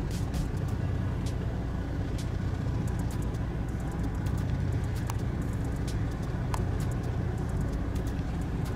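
Steady low engine rumble, with faint scattered ticks above it.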